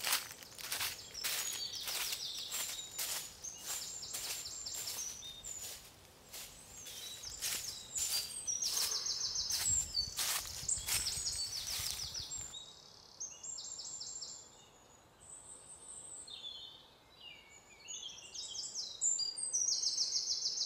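Footsteps crunching through dry fallen leaves, about one or two steps a second, stopping about twelve seconds in. Small birds call with short, repeated high chirps throughout.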